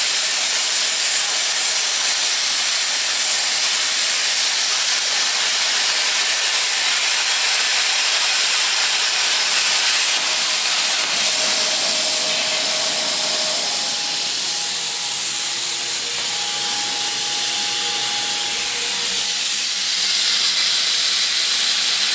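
Plasma cutter torch cutting, its arc and air jet making a loud, steady hiss. About halfway through, faint whining tones join in and shift in pitch a few times.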